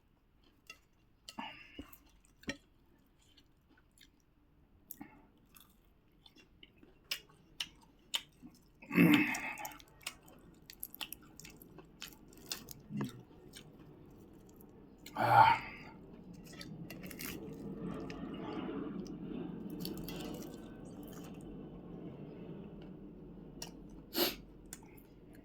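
Close-up mouth sounds of someone eating puri with pickle and vegetable curry: chewing with many small wet clicks and smacks. There are two louder bursts about 9 and 15 seconds in, and a low steady murmur underneath from the middle to near the end.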